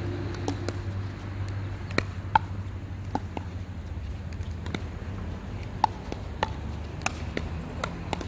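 Pickleball rally: paddles hitting the hollow plastic ball, a dozen or so sharp pops at irregular intervals, some with a short hollow ring.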